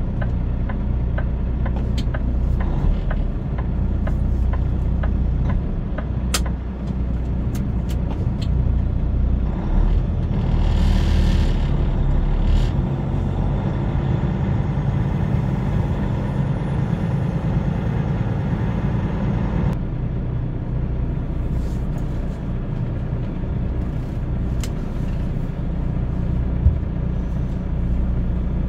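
Semi truck's diesel engine running with a steady low rumble, heard from inside the cab as it creeps along. A steady clicking runs through the first several seconds, and about ten seconds in there is a short burst of air hiss from the truck's air brakes.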